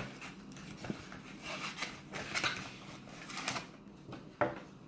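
Small plastic toy packaging and pieces being handled and opened by hand: scattered rustles and light clicks, about one every second.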